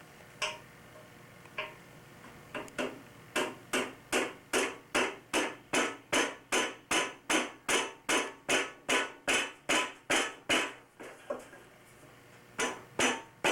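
Hammer blows on wood, likely driving a glued dowel down into a hole drilled in a Sunfish rudder. A few single knocks are followed by a long run of steady, even strikes at about two and a half a second. The strikes pause briefly near the end, then start again.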